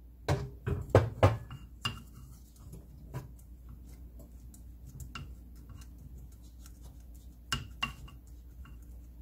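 A wooden spoon knocking and scraping against a stone pot while cooked rice is spread and pressed into it: a quick run of sharp knocks at the start, lighter taps after, and two more knocks near the end.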